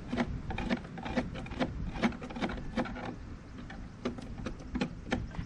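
Hand scraper scraping rotten wood and old paint off shed trim in short, quick strokes, about two to three a second.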